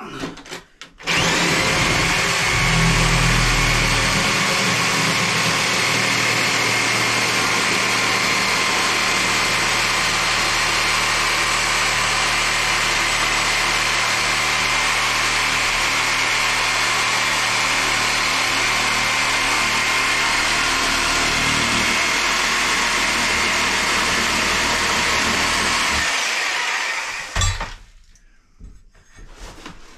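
Corded reciprocating saw running steadily as it cuts through rotten floor decking along the bathroom wall, with a steady motor whine. It starts about a second in and cuts off shortly before the end, followed by a couple of knocks.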